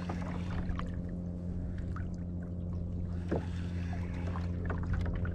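Steady low hum of a boat motor running at constant speed, with scattered small clicks and splashes.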